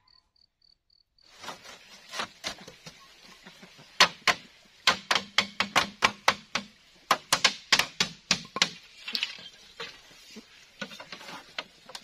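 Thin split-bamboo slats clacking and knocking against each other and the bamboo frame as they are slotted into a chicken coop's lattice wall, a quick irregular run of sharp clicks starting about a second in. A few faint high chirps come just before it.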